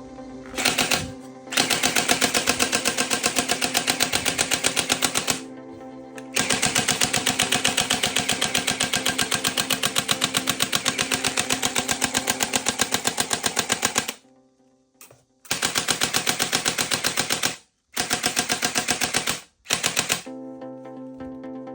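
Toy gun firing in long automatic bursts, a fast rattle of shots that breaks off a few times and stops shortly before the end.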